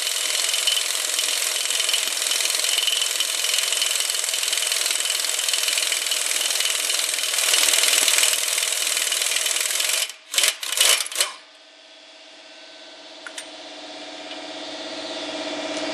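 Air impact wrench hammering continuously on a front axle nut for about ten seconds, then a few short bursts. An air compressor then kicks on and runs, growing steadily louder.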